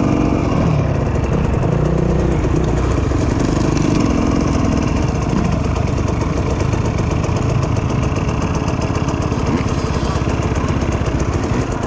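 Dirt bike engine running, its pitch rising and falling with the throttle in the first few seconds, then steadier.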